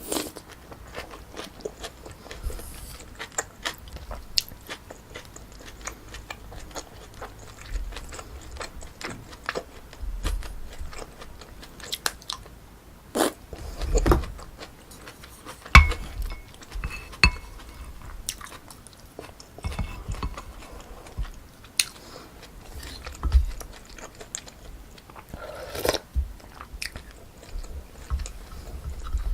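Close-miked chewing and mouth sounds of someone eating pork kimchi stew with rice, a steady run of wet smacks and small clicks with a few louder ones in the middle.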